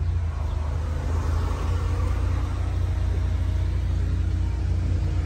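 Steady low rumble of road traffic, with a little more engine noise coming through about a second in.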